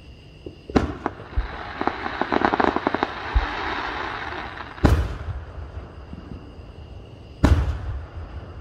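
Aerial firework shells exploding: three sharp booms, about a second in, near five seconds and about seven and a half seconds in, each echoing away. Between the first two comes a dense spell of crackling.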